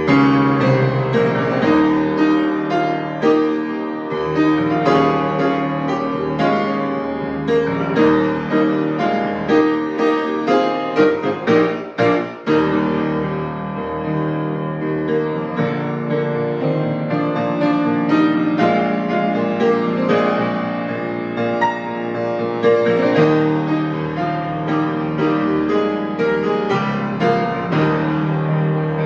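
Solo piano playing a hymn arrangement, with full chords and a moving melody and a short break in the playing about twelve seconds in.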